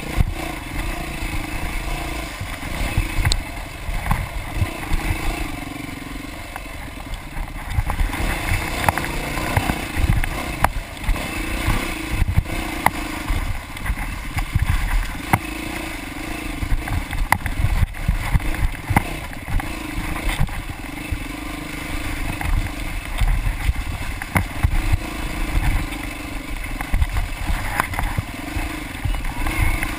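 Dirt bike engine running under constantly changing throttle as it rides a rough trail, rising and falling in pitch, with frequent knocks and rattles from the bike jolting over rocks and ruts.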